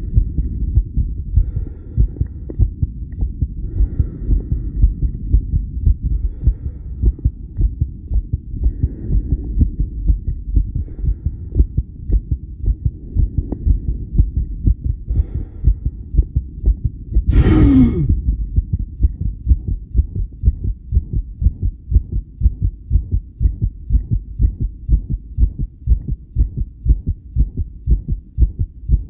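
Human heartbeat heard through a self-made electronic stethoscope on the chest, beating fast and strong in an even lub-dub rhythm. A little past halfway, one brief loud rubbing noise with a falling tone sounds over it.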